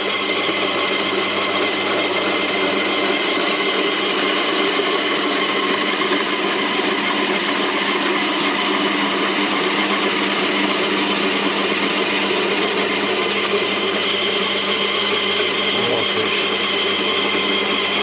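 Electric vegetable grater's motor running steadily as it shreds carrot, an even hum with no break.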